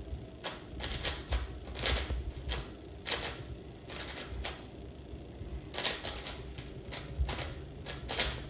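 Qiyi WuShuang M 5x5 speed cube being turned in a solve: the plastic layers clack and click in quick irregular clusters, a few a second.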